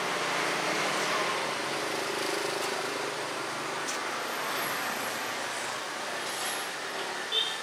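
Road traffic running steadily as street background, with a short high squeak near the end.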